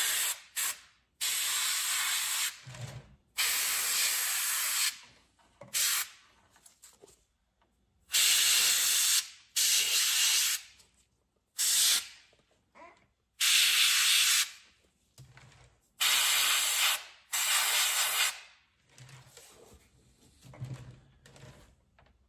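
Airbrush spraying in short bursts: a hiss of air that starts and stops about ten times, each burst about a second long.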